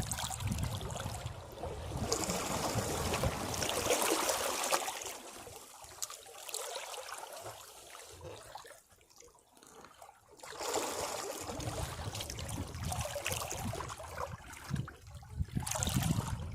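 Sea waves washing over rocks and draining back, in two surges: a long hissing wash at the start, a lull about nine seconds in, then another surge with a low rumble.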